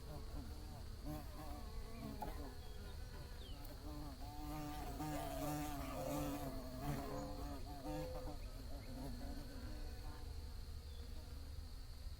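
Bees buzzing in flight, several drones wavering in pitch and swelling louder around the middle as they pass close. A steady thin high tone runs underneath.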